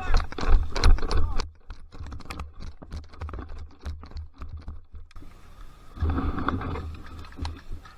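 A run of sharp, irregular clicks and rustling, densest and loudest in the first second and a half and again about six seconds in, over a steady low rumble of wind on the microphone.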